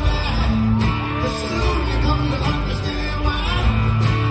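Live acoustic rock band playing an instrumental passage: two strummed acoustic guitars over sustained keyboard chords.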